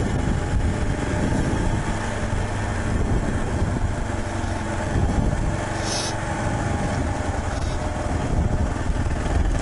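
Motorcycle engine running steadily while riding, under dense rushing noise from wind on the helmet microphone. A brief hiss comes about six seconds in.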